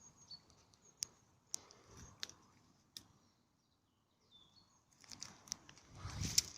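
Faint footsteps on a wet, flooded footpath: a few sharp clicks spaced about half a second apart, then a louder scuffing, wet-sounding step near the end.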